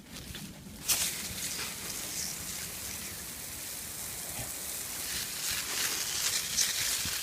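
Garden hose spraying water onto burning brush, starting suddenly about a second in and then running steadily.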